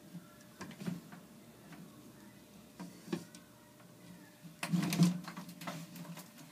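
Scattered light knocks and clicks from handling and moving about, with a louder rattling clatter about five seconds in.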